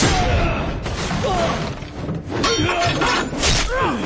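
Fight-scene sound effects: several sharp clashes and impacts of weapons, a few seconds apart, mixed with short cries from the fighters.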